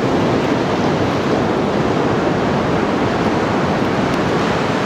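Waves breaking on a sandy beach: a steady wash of surf noise.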